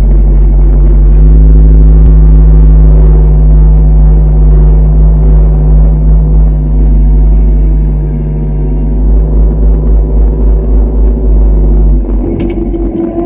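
Tractor engine running steadily and loudly close by as the tractor drives off, with a change in the engine note and some clatter about twelve seconds in.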